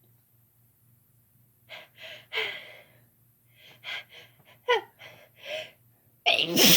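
A woman's sneeze building up: a series of sharp, gasping in-breaths, some catching briefly in pitch, then a sneeze near the end, much louder than the gasps.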